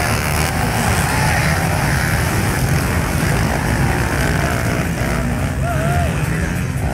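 Several semi-automatic pit bikes with small single-cylinder four-stroke engines racing past on a dirt track, revving up and down as they shift gears, with a few quick rising-and-falling revs near the end.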